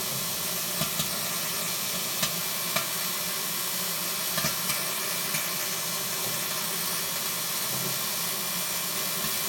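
Microwave oven running empty, a steady hum and sizzling hiss broken by scattered sharp crackles and snaps: the sound of it arcing and starting to burn inside.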